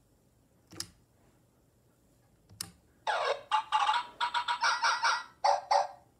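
Hasbro i-Dog robot dog toy: two sharp clicks, then from about three seconds in its small speaker plays a rapid run of short, chopped electronic chirps and notes for about three seconds.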